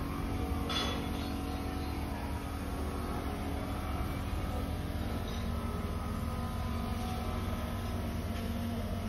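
An engine or motor running steadily with a low hum, with a single short knock about a second in.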